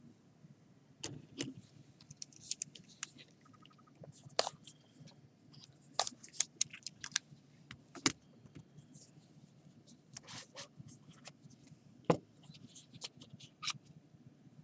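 Sports card packaging and cards being handled: an irregular string of sharp crinkles, clicks and scrapes, the loudest snap about 12 seconds in.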